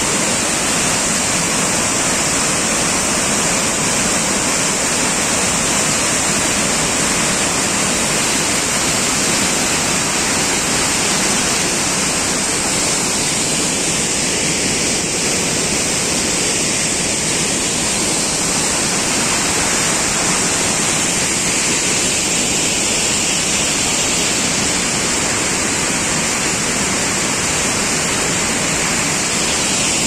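Waterfall rushing as a steady, unbroken roar of falling water, with a constant high hiss on top.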